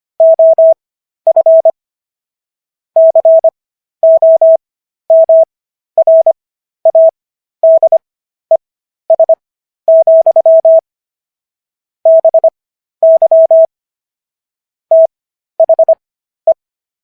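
Morse code sent as a single steady mid-pitched tone: quick dits and dahs at 25 words per minute character speed, with Farnsworth spacing stretching the silent gaps between letters and words to an overall 15 words per minute.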